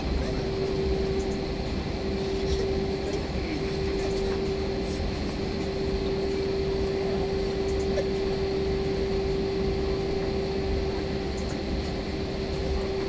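Cabin noise of an Airbus A321 taxiing: a steady low rumble with a constant hum over it.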